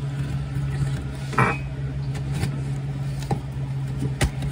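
A cardboard box being worked open by hand, giving a scrape about a second and a half in and a sharp click near the end, over a steady low machine hum.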